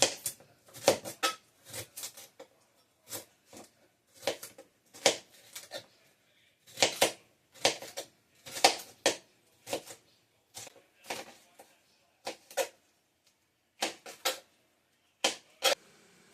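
Knife chopping vegetables on a cutting board: irregular sharp knocks, one to three a second, in short runs with brief pauses between them.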